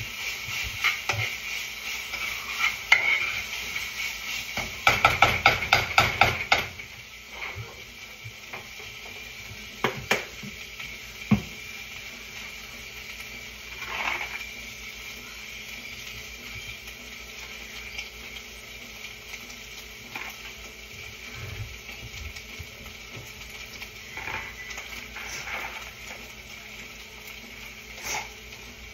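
A spoon stirring and scraping in a pot of sizzling food on the stove, with quick rapid knocks against the pot over the first six seconds or so. After that the stirring stops and a steady sizzle goes on, with a few scattered knocks.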